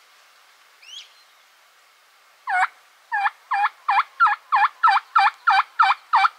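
Turkey yelping: a run of about eleven evenly spaced yelps, about three a second, growing louder. A short rising chirp from a small bird comes about a second in, before the yelps.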